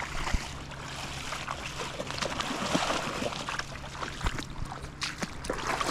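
Water sloshing and trickling, swelling around the middle, with scattered knocks and clicks.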